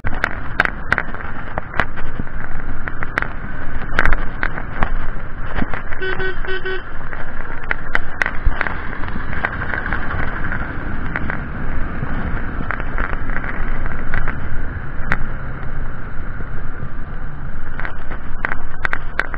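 Wind buffeting an action camera's microphone and road noise from a moving motorcycle, full of sharp gusts and clicks. A horn beeps in a few quick pulses about six seconds in.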